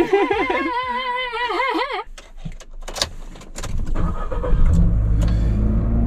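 A man's drawn-out laugh with a wavering pitch for about two seconds, then after a short pause a click. From about three and a half seconds in, a Nissan van's engine and road rumble rise steadily as the van drives off.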